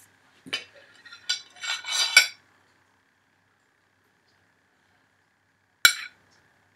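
Metal spoon clinking and scraping against a plate: a cluster of short clinks and scrapes in the first two seconds, then one sharp clink near the end.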